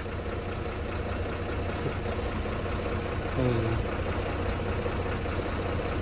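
Diesel lorry engine idling steadily. About three and a half seconds in there is one brief low sound that falls in pitch.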